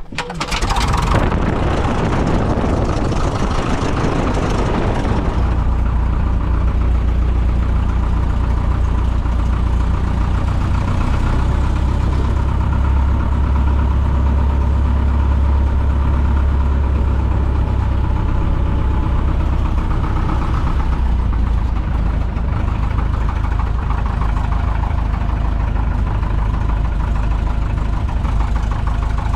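Piper J3 Cub's piston engine and propeller running steadily, heard from inside the cockpit as a loud, even low drone. There is extra rushing hiss for the first few seconds.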